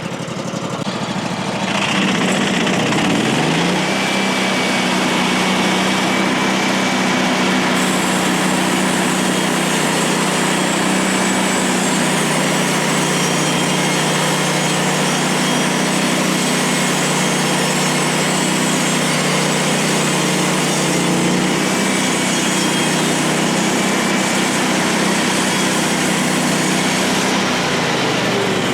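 Woodland Mills HM136MAX bandsaw mill's small gas engine revving up about two seconds in and running steady at high speed, dipping briefly once and dropping back right at the end.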